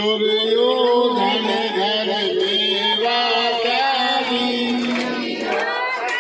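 Voices singing a devotional chant in long, drawn-out held notes.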